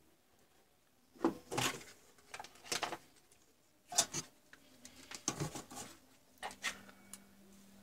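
Handling noises as tools are fetched for soldering: about five short rustles and knocks, a second or so apart.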